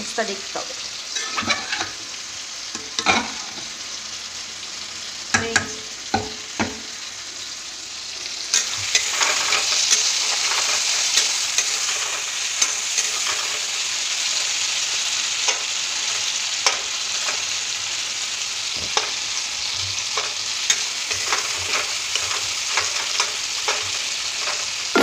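Chopped tomatoes frying in hot oil in a kadai with spices, stirred with a spatula that knocks and scrapes against the pan. The sizzle grows louder about eight seconds in and stays steady, with scattered knocks of the spatula on the pan.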